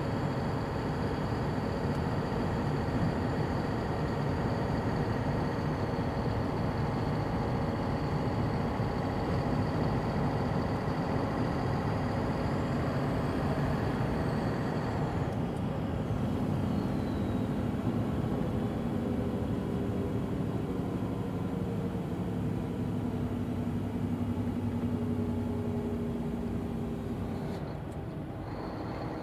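Steady running of a heavy truck's engine with road noise. About halfway through the higher hiss drops away, and the sound shifts again near the end.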